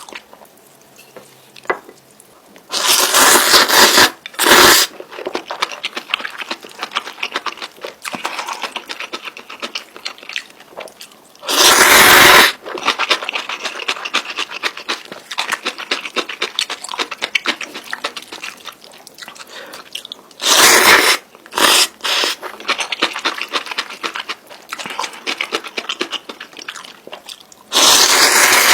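Close-miked eating of spicy instant noodles: continuous wet chewing and mouth clicks, broken about five times by loud slurps of noodles, each lasting up to about a second and a half.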